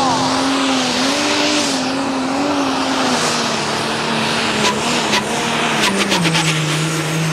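Pro Stock pulling tractor's turbocharged diesel engine running hard. Its pitch wavers, then steps down from about six seconds in as the revs fall. Sharp cracks come through from about five seconds in.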